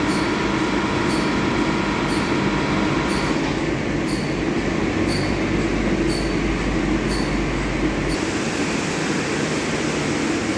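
EVO 360 Softline automatic car wash heard from inside the car: soft brushes and water spray working over the bodywork as a loud, steady wash noise, with a faint tick about once a second. A low hum and the ticking drop out about eight seconds in, leaving the steady noise.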